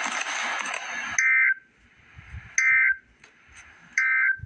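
About a second of hiss, then three short, identical bursts of rapidly warbling two-tone data squawk, about 1.4 s apart. This is the Emergency Alert System end-of-message code, which marks the close of the alert.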